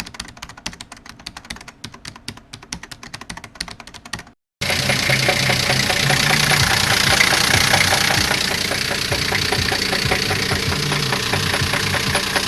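Rapid keyboard-typing clicks for about four seconds, then an abrupt cut to a car engine idling with a heavy, irregular knocking. The knock is faked by someone striking the engine with a wrench, not a real bearing failure.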